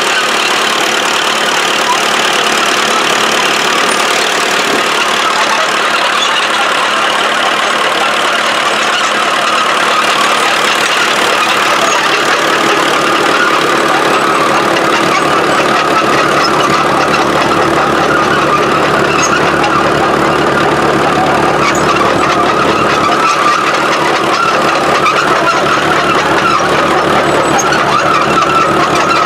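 1955 International TD6 crawler's four-cylinder diesel engine running steadily as the crawler drives along, with no break in the sound.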